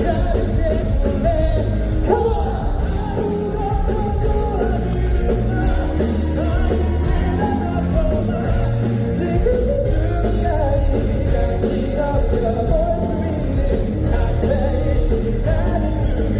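Pop-rock song performed by a band, with lead singing over drums, bass and guitars; the music is loud and steady.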